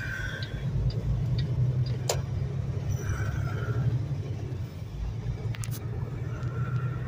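Semi truck's diesel engine running at low speed, a steady low rumble heard inside the cab, with a few faint clicks over it.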